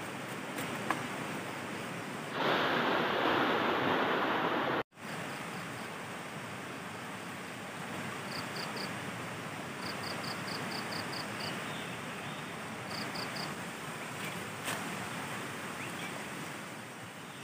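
Steady rush of a fast river running over rocks, with a louder stretch of noise that cuts off abruptly about five seconds in. Faint short high chirps come in quick runs of three to seven a little later.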